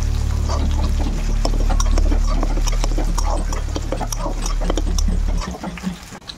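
Thick tomato-onion masala bubbling and spattering in a steel kadhai as a spatula stirs it, a quick run of wet pops and clicks over a low steady hum that stops about five seconds in.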